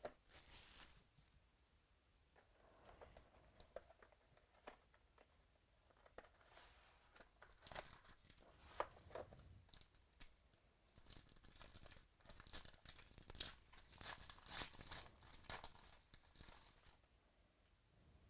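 Faint tearing and crinkling of plastic wrapping as a box of trading cards is opened, the crackling thickest in the second half.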